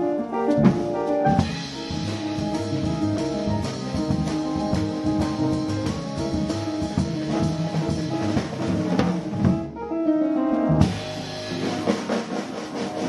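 Jazz piano trio playing live: piano, bass and drum kit with busy cymbals. The drums drop out for about a second near the end, then come back in with a hit.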